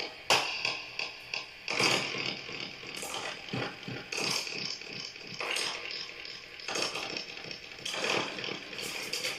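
Dark ambient passage of an ambient black metal track: a noisy texture of irregular metallic clanks and ratchet-like rattles, with a sharper knock roughly once a second.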